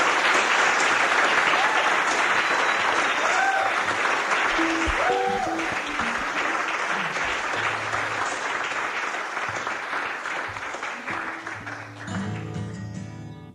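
Audience applause with a few whistles after a live song, slowly dying down; near the end a short pitched sound, then it cuts off suddenly.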